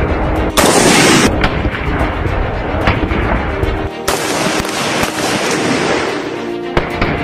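Rifle gunfire over background music: a dense, loud burst about half a second in, then scattered single sharp shots and a longer stretch of firing noise from about four seconds in.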